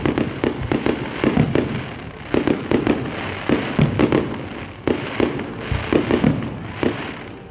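Aerial fireworks going off in quick, irregular succession: sharp bangs and cracks over low booms, several a second.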